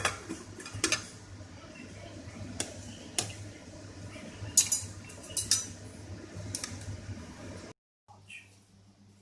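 Metal utensils clinking against pots and dishes in a kitchen, about eight sharp clinks at uneven intervals over a steady low hum, with the sound cutting out briefly near the end.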